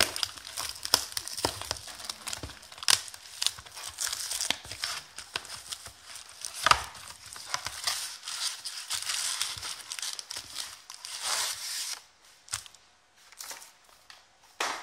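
Plastic wrap crinkling and tearing as an Aficionado basketball card box is unwrapped and opened, with cardboard scraping and sharp taps as the foil packs slide out and are set down on a wooden table; one knock about seven seconds in is the loudest. The handling goes quieter near the end, with a few clicks.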